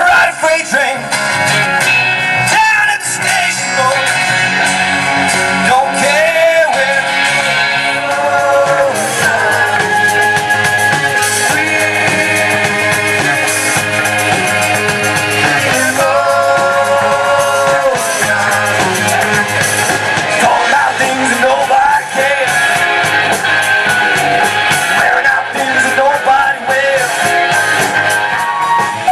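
Rock band playing, electric guitars, bass and drums under a lead vocal.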